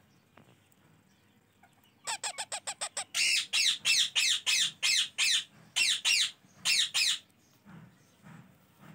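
Ringneck parakeet chicks giving begging calls during hand-feeding. About two seconds in comes a quick run of short calls, about six a second, then louder, longer calls at roughly two a second for about four seconds, stopping a little before the end.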